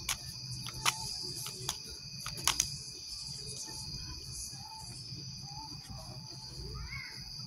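Night insects chirring steadily at a high pitch, with about five sharp clicks of a tarot deck being shuffled in the first three seconds.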